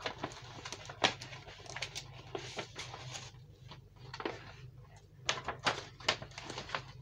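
Plastic cellophane craft-supply packaging being handled: an irregular scatter of short crinkles and clicks, over a steady low hum.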